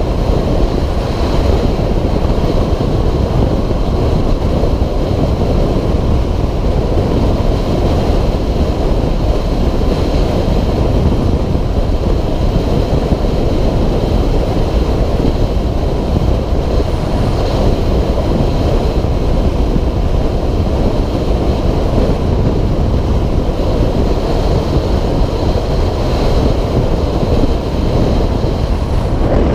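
Steady rush of wind over the camera microphone while riding at road speed on a 2006 Suzuki DR650SE, with the bike's single-cylinder engine running underneath.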